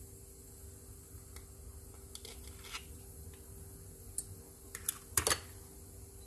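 Light clicks and taps of eggshell halves being handled while egg yolks are separated from the whites over stainless-steel bowls. A few faint clicks come first, then a quick cluster of louder clicks about five seconds in.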